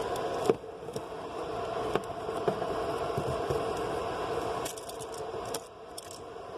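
Handling noise at a patch panel: a few sharp clicks and light scraping as small plastic parts are handled, over a steady background hum.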